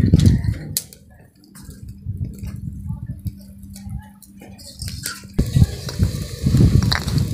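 Faint clicks of aluminium pots at a wood-fired clay stove, then from about five seconds in a steady hiss of tea boiling in an aluminium pot over the fire. Low rumbles at the start and near the end.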